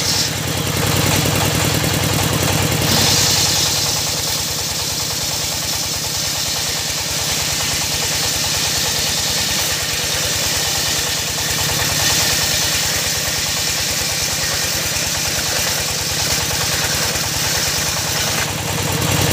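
Circular saw bench driven by a single-cylinder diesel engine: the engine runs with a steady rapid beat, and from about three seconds in until near the end the blade rips lengthwise through a teak plank with a continuous high hiss.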